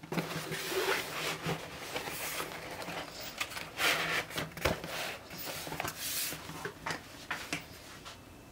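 Tile-pattern self-adhesive puff sheet film rustling and crinkling as the rolls are unrolled and the sheets spread out and smoothed by hand, in an irregular run of crackles and rubs.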